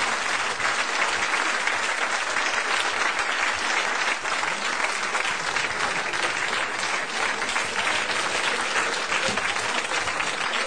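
Studio audience applauding: many hands clapping in a dense, steady stream.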